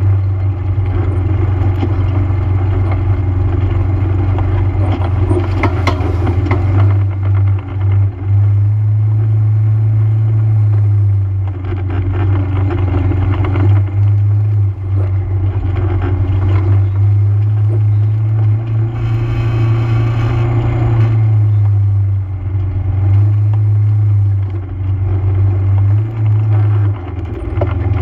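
ATV engine running steadily while the machine rides over a dirt trail, a constant low drone that eases off briefly several times as the throttle is let up.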